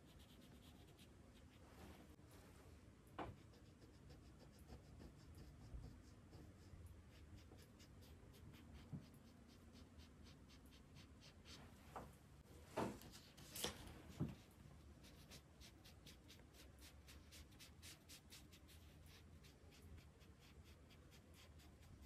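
Faint strokes of a drawing tool on paper, with a few sharp clicks near the middle, then quick, regular strokes at about four a second.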